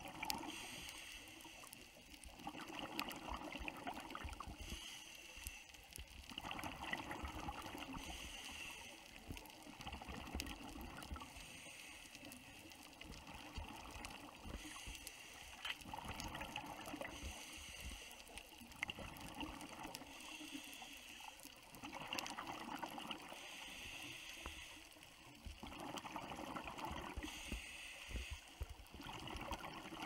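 Underwater scuba breathing through a regulator: a hissing inhale alternating with a burst of exhaled bubbles, about one breath every four seconds.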